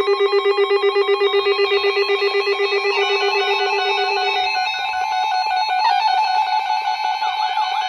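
A bank of NOAA weather radios sounding their alert alarms together for a severe thunderstorm warning: many overlapping rapid electronic beeps and tones. A low, fast-pulsing beep stops about halfway through, and a warbling siren-like alarm joins near the end.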